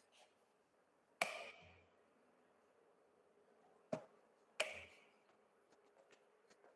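Three sharp knocks, each with a short ringing tail: one about a second in, then two close together around four and four and a half seconds in, over faint room hum.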